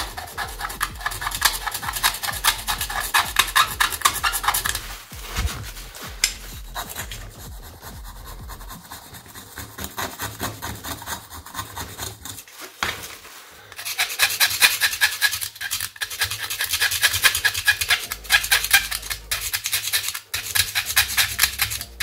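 A hand tool scraping hardened microwave-absorption paint off the inside of a terracotta clay pot saucer in fast, rasping strokes; the paint is really hard to get off. The scraping eases off for several seconds in the middle, then starts again hard.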